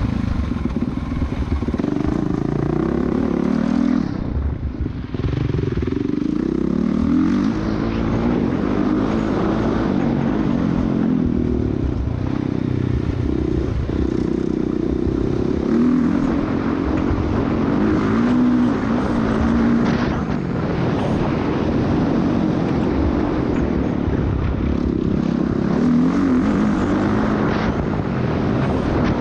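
Dirt bike engine heard from the rider's onboard camera during a practice lap, its pitch rising and falling with the throttle through corners and straights. The engine drops away briefly about four seconds in.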